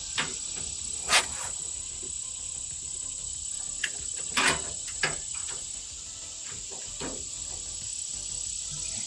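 A handful of short sharp clinks and knocks of a socket and wrench being worked on bolts, loudest about a second in and again near the middle, over a steady high-pitched whine.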